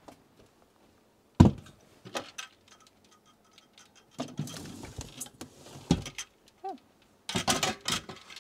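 A large lidded storage container being set down and shifted about on a closet floor. There is a sharp knock about a second and a half in, then scattered knocks and scuffing, and a run of clattering near the end.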